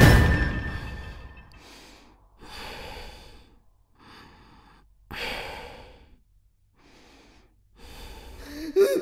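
A man breathing hard in about six separate gasps, with short quiet gaps between them. Music fades out at the start.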